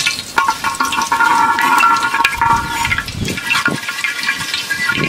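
Fenugreek seeds sizzling in hot oil in a large aluminium pot, while a perforated steel spoon stirs and scrapes against the pot's base, its ringing scrape heard over the hiss.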